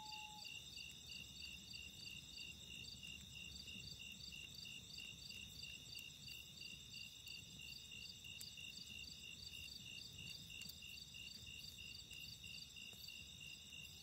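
Crickets chirping steadily, about three chirps a second, with the held end of a common loon's wail fading out about half a second in. A few faint pops from the wood fire.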